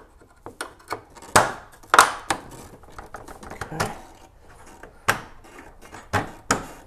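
Plastic headlight assembly and its retaining pins being worked into the car's front-end mount by hand: irregular sharp knocks and clicks, the loudest about one and a half and two seconds in.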